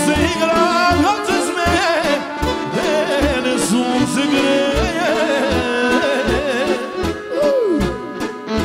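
Balkan folk song: a heavily ornamented, wavering lead melody over a steady bass beat.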